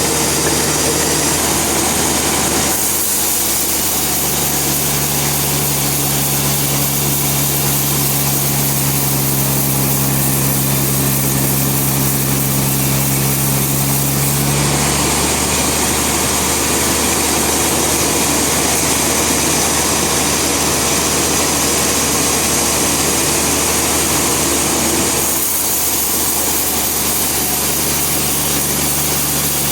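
Bandsaw sawmill running steadily, its engine running under the saw, with its pitch and tone shifting abruptly about 3, 15 and 25 seconds in.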